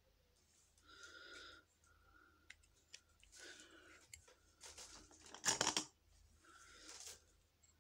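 Handling noise of a plastic blush compact close to the microphone: a few short rustles and scrapes, with a louder clatter about five and a half seconds in.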